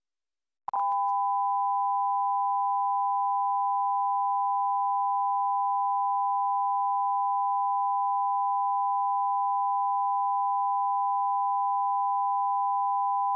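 Steady broadcast line-up test tone from the color-bar feed, switching on with a short click about a second in.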